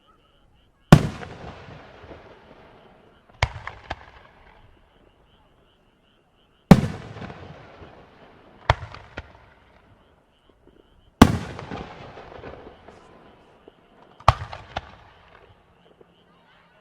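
Aerial firework shells bursting: three loud booms, each trailing off in a crackling decay, with a quick cluster of two or three smaller sharp cracks between each pair of booms.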